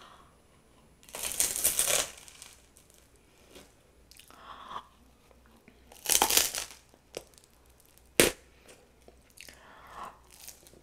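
Close-up crunching of a crusty ciabatta being bitten into, with two loud crackling bites about a second in and about six seconds in, and softer chewing and tearing between them. A single sharp click a little after eight seconds.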